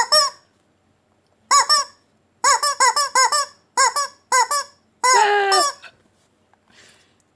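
Small rubber screaming-chicken squeaky toy being squeezed again and again: a run of short squeaks in quick clusters, then a longer drawn-out squeak about five seconds in that falls in pitch.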